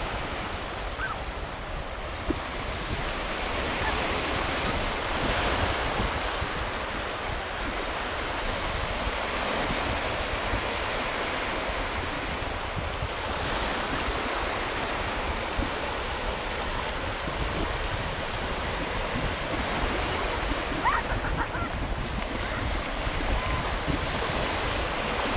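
Small sea waves washing and breaking in the shallows, a steady surf wash that swells a little now and then, with wind buffeting the microphone.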